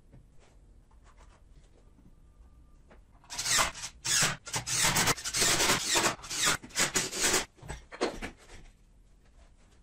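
A DeWalt cordless impact driver runs in a series of short, loud bursts, starting about three seconds in and ending about a second before the end. It is driving screws into a pine bench leg.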